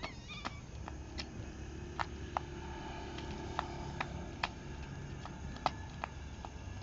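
Sandals slapping on asphalt as a child hops on one foot: a string of sharp clicks at an uneven pace, over a low steady rumble.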